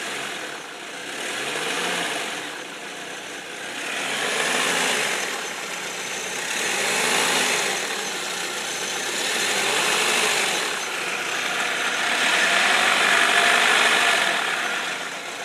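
2004 Saab 9-3 Aero's turbocharged four-cylinder engine running and revved gently about five times. There is a strange noise from the serpentine belt side, which the owner thinks is the belt tensioner, an idler pulley or the timing belt tensioner.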